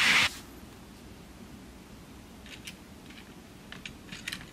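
A loud rushing hiss cuts off suddenly just after the start. After a quiet stretch come a few light clicks and taps of OO-gauge model wagons being handled and set on the rails.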